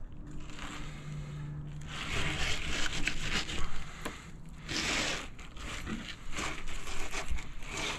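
Sord flexible fillet knife slicing through red snapper flesh and scraping over the rib bones, an irregular rasping and crackling with a louder rasp about five seconds in.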